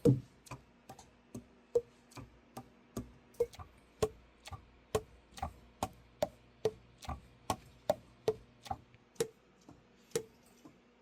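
Saxophone keys being worked by hand, their pads clacking shut on the tone holes in a steady rhythm of about two and a half clicks a second, some louder than others.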